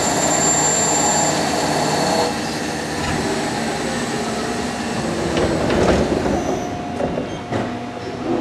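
Machine-shop machinery running: a steady mechanical noise with a high-pitched whine over the first two seconds, then a few sharp clicks or knocks near the end.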